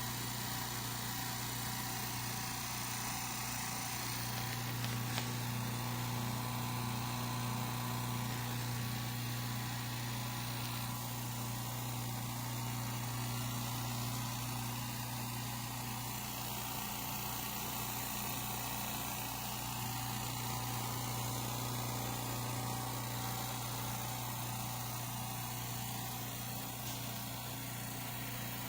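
California Air Tools oil-free air compressor running steadily with a low, even hum.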